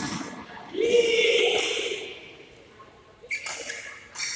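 Badminton rally: a sharp racket hit on the shuttlecock at the start, then a long drawn-out shout held on one pitch for over a second, and a few more sharp hits near the end.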